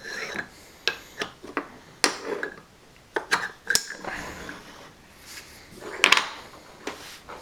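Wooden stacking-toy rings clacking against each other, the post and the hardwood floor: a string of sharp, uneven knocks, the loudest about six seconds in.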